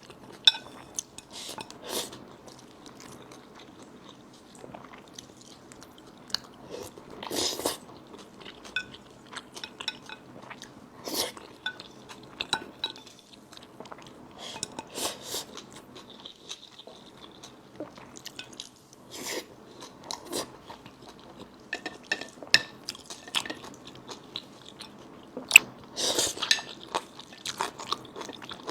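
Close-miked eating: irregular chewing and biting with sharp crunches, plus occasional clinks of utensils against a dish.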